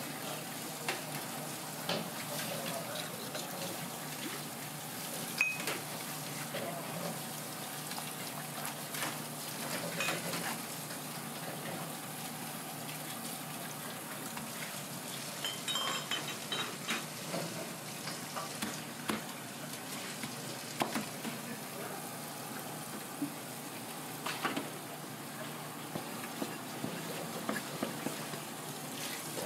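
Busy kitchen background: a steady hiss with scattered knocks and clinks of a knife and dishes, and a brief metallic ring about halfway through.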